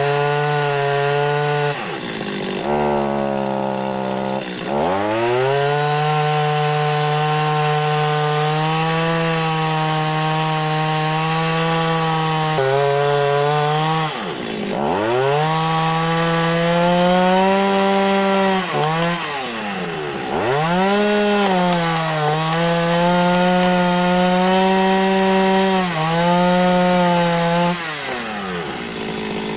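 Stihl MS 210 two-stroke chainsaw cutting through a thick log, the engine held high under load with its pitch dipping and climbing back several times as the throttle is eased and reopened.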